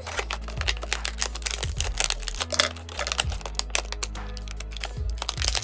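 Scissors cutting and hands working a stiff clear-plastic blister pack, giving a rapid, irregular crackling and clicking of the plastic. Background music with a low bass line plays underneath.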